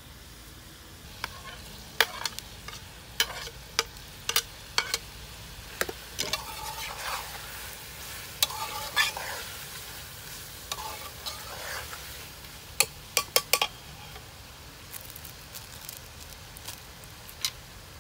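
A metal spatula stirs chicken pieces frying in a steel karahi, with sharp clinks and scrapes of metal on the pan over a steady sizzle. The clinks come in scattered clusters.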